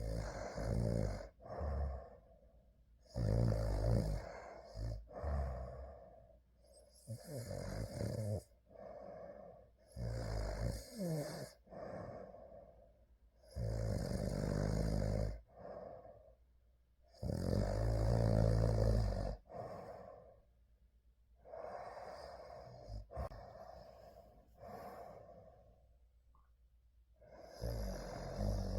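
A sleeping person snoring in slow, regular breaths, about one every three to four seconds, with quiet gaps between them.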